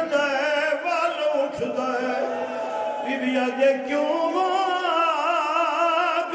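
A zakir (Shia mourning orator) chanting a sung lament into microphones. He holds long notes with a quivering, wavering pitch.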